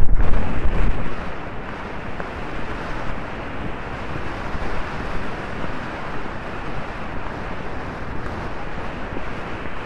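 Wind rushing over the microphone of a rider-mounted camera on a galloping horse: a steady rush of noise, with heavy low buffeting in the first second.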